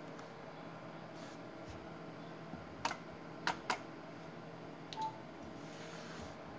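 Band switching on a homebuilt MRF300 HF/6m linear amplifier: three sharp clicks about three seconds in as the band-select buttons are pressed and the amplifier goes from 6 m to 20 m, then a single short beep from the transceiver. A steady low hum runs underneath.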